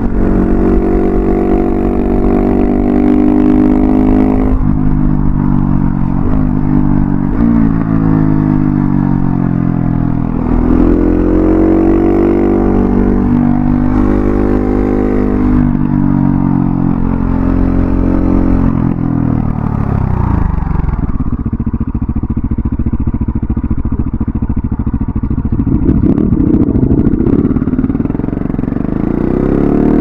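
KTM 690 SMC-R's single-cylinder engine through an Arrow Thunder slip-on exhaust with its dB-killer fitted, ridden on the open road. Its pitch climbs and drops in steps through the first part. About two-thirds of the way in the revs fall away, and it runs at low revs with a rough, lumpy beat before revving up again near the end.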